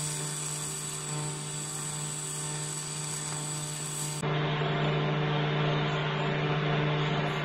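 TIG welding arc on copper buzzing steadily in fast-pulse mode at about 100 amps, with a steady low hum under it. The sound changes abruptly about four seconds in.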